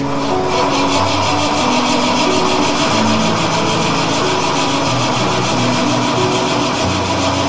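Large standby generator's engine running steadily, with background music playing over it.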